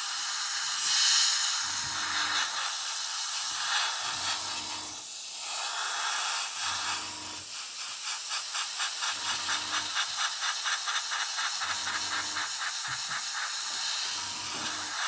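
Airbrush spraying thinned paint in light, dry passes: a steady hiss of air. About halfway through, the hiss starts to flutter in quick pulses, several a second, and a low hum comes and goes every couple of seconds.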